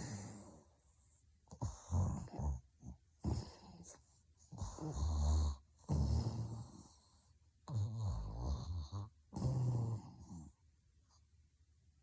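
A sleeping woman snoring heavily: about seven loud, rough snores in irregular bursts of half a second to a second and a half, with a deep buzz. They die down for the last second or so.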